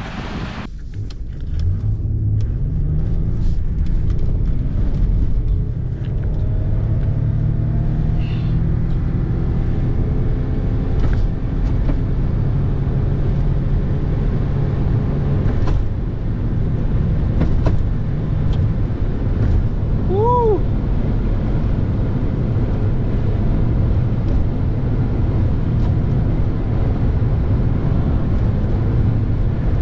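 Lexus RX400h hybrid SUV heard from inside the cabin, accelerating: its V6 engine note climbs steadily for about ten seconds, then holds at a constant cruising speed over a steady tyre and road rumble. A short falling chirp sounds about two-thirds of the way through.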